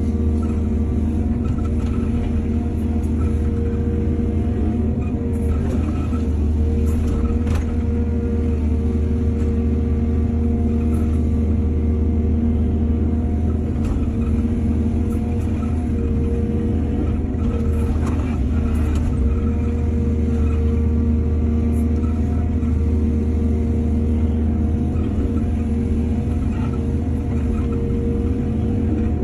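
Excavator's diesel engine running steadily at a constant speed, with a few faint clinks and knocks now and then.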